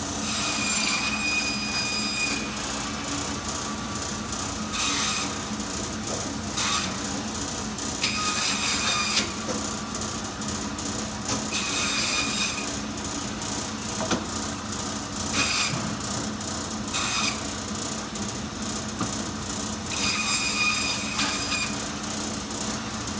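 Biro meat band saw running with a steady motor hum, its blade screeching in repeated bursts, about eight times, each time it is pushed through beef bone.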